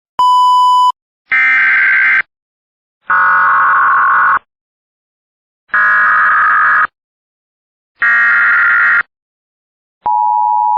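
Emergency Alert System signalling: a short steady beep, then four bursts of SAME header data about a second each, and, about ten seconds in, the two-tone EAS attention signal starting.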